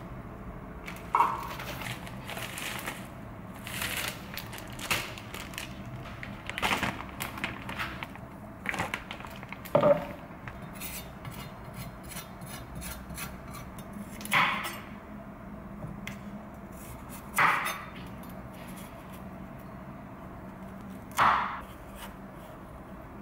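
Plastic grocery packaging rustling and packs knocking on a counter in the first half. Then a chef's knife cuts through a raw carrot onto a wooden cutting board: three slow single cuts, one every three to four seconds.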